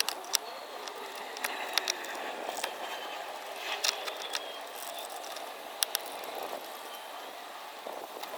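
Scattered sharp clicks and clinks from metal hardware being handled while an LED light pod is positioned on its mounting bracket, over a steady background hiss.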